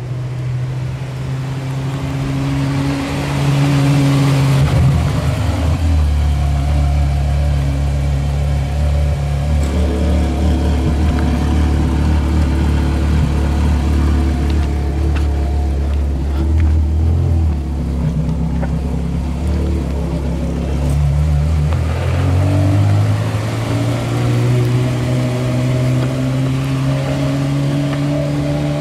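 Porsche Carrera GT's straight-piped 5.7-litre V10 running at low revs as the car moves off slowly, a deep steady drone that shifts in pitch a couple of times.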